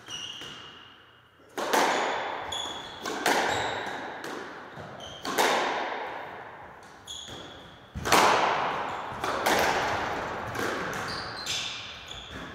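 A squash rally: sharp, echoing smacks of the ball off rackets and court walls, about one every second or so, each ringing on in the enclosed court, with short squeaks of court shoes on the wooden floor between them.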